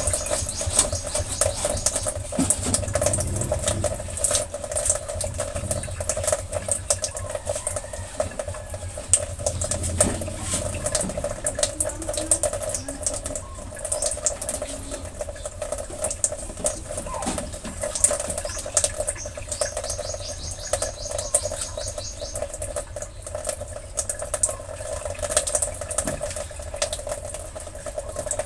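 Covered pot simmering on a lit LPG stove burner: continuous crackling and bubbling over a steady hum.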